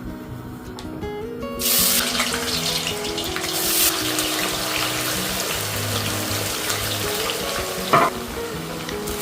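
Food sizzling in hot oil in a frying pan. The hiss starts suddenly about a second and a half in, surges again about two seconds later, and there is a brief clatter near the end, all over steady background music.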